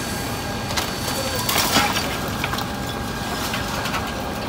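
Heavy machinery, an excavator's engine, running steadily, with a cluster of sharp knocks and clatter of rubble about a second and a half in.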